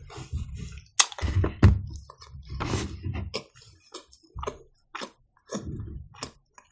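Close-miked chewing of a mouthful of pide flatbread: an irregular run of soft mouth clicks and smacks with short pauses.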